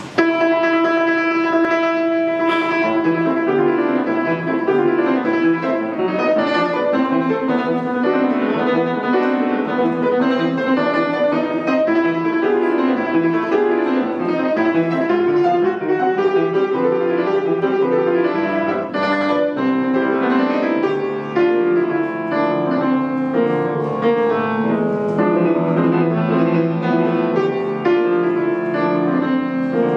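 Solo classical piano played on an Estonia grand piano: it opens on a held note, and after about two seconds goes into a flowing passage of many notes.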